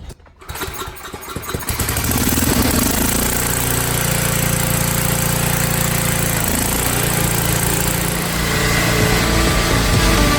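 Small gasoline portable generator engine starting up and then running steadily, with a brief dip about six and a half seconds in.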